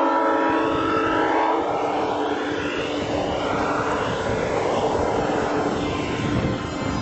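Horn chord from the G scale model diesel locomotives, cutting off about a second and a half in. The long train of loaded car-carrier wagons then rolls past on the track with a steady rushing rumble of wheels on rail.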